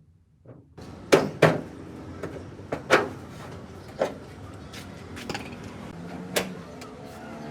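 Hammer blows on the sheet metal of a car hood during dent repair: about five loud, irregular strikes and several lighter taps, over a steady background noise that starts just under a second in.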